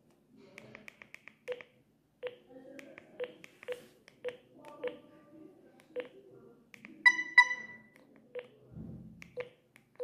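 Alcatel OneTouch 320 mobile phone keys being pressed to scroll through its menus: a string of short plastic clicks, each with a brief low key tone, about two a second. About seven seconds in come two short, higher electronic beeps in quick succession.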